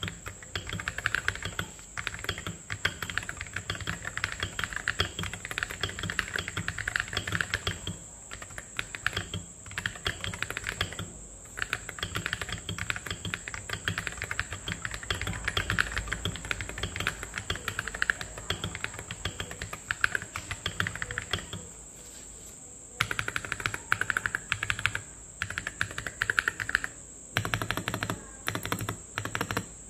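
Fast typing on a KBD67 Lite R2 mechanical keyboard with stock Glorious Panda tactile switches and MT3 keycaps, giving a dense run of key clacks. There is a short pause about three-quarters of the way through, and the typing comes in broken bursts near the end.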